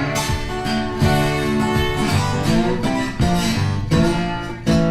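Background music led by strummed acoustic guitar, country style, with strums roughly once a second.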